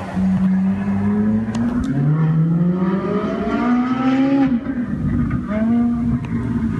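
Ferrari 458 Italia's naturally aspirated V8 accelerating hard. The engine note rises, drops sharply at an upshift about two seconds in, climbs again to a high pitch, falls away about four and a half seconds in, then holds steadier.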